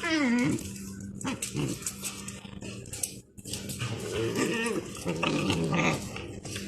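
Dogs play-fighting and vocalising: a high whine sliding down in pitch right at the start, then more whines and yelps from about four to six seconds in.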